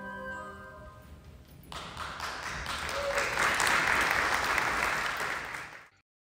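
Theatre audience applauding, building up about two seconds in after the last held notes of music fade, then cut off abruptly near the end.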